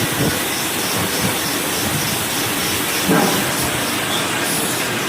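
CNC lathe turning an outside diameter: a steady, loud hiss of machining, with a single knock about three seconds in.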